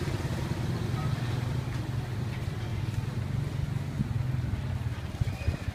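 Steady low rumble of street traffic and running vehicle engines.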